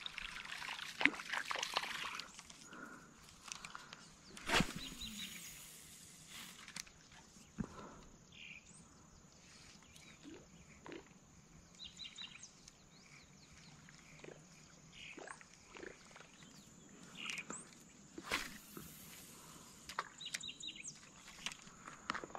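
Quiet outdoor ambience by the water: scattered short bird chirps and a thin steady high tone, broken by a few sharp knocks and brief rushes of noise from handling the fishing rod and reel. The busiest stretch is in the first two seconds.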